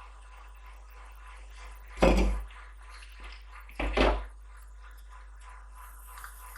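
Two short knocks, about two seconds apart, the second one doubled, as objects are handled and set down during a soldering job.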